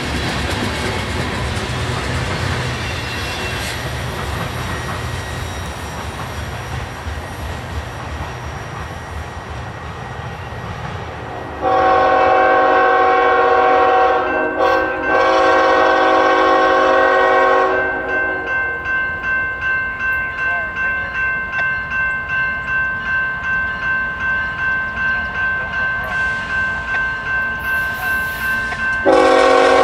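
Freight cars rolling past with a steady rumble that fades. Then an approaching Norfolk Southern freight locomotive blows its air horn: a long blast, a short one, another long blast. Its bell then rings about twice a second until the horn sounds again near the end.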